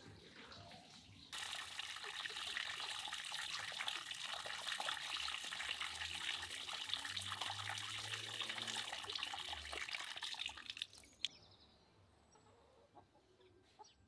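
A stream of water from a garden hose splashing onto chunks of raw meat on a metal tray as they are rinsed by hand. It is a steady, hissy splashing that starts just over a second in and cuts off sharply about three seconds before the end, leaving only faint sounds.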